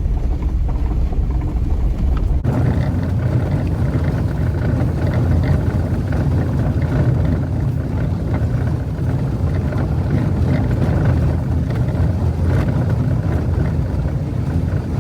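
Jeep Wrangler driving up a dirt trail: a steady engine drone with tyre and road rumble.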